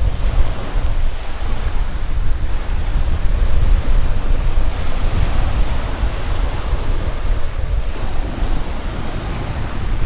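Small sea waves breaking and washing up a pebble beach, with gusting wind buffeting the microphone as a heavy low rumble.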